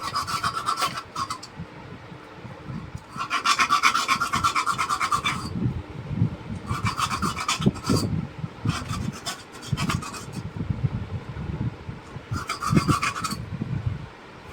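Five short bouts of rapid rasping scrapes, as a rice cooker's wire connector is scraped clean of corrosion before being rejoined.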